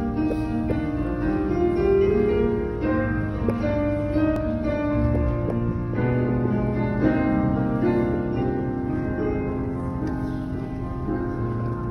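Wedding processional music with piano, slow held notes and chords.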